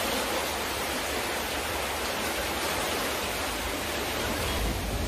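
Floodwater rushing and churning through a flooded room, a steady rush.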